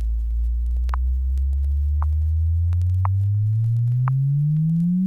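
Test-record frequency sweep: a pure sine tone climbing slowly and steadily in pitch from a low hum, in the 50-to-500-cycle stretch of a 1963 Audio Fidelity stereo test LP. Faint vinyl surface clicks tick about once a second.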